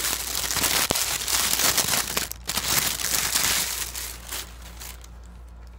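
Plastic wrapping crinkling and rustling as it is pulled open and off a ring light's orange colour filter, dying down near the end.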